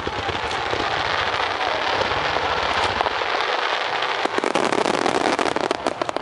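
Starmine fireworks barrage: a dense crackling hiss, then from about four seconds in a rapid volley of sharp bangs and crackles that cuts off abruptly near the end.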